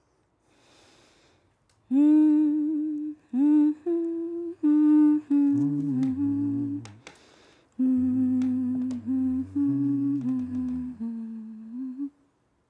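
Humming of a slow, wordless tune in long held notes that move in small steps. About halfway through, a second, lower voice joins in harmony, and the humming stops shortly before the end.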